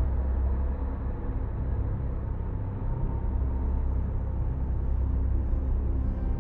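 Sci-fi UFO hovering sound effect: a steady, deep droning rumble, heaviest in the bass, with faint steady tones above it.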